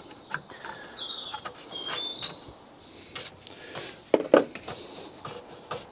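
A bird chirping in short gliding high notes over the first two and a half seconds, with scattered clicks and knocks throughout, the loudest a sharp knock about four seconds in.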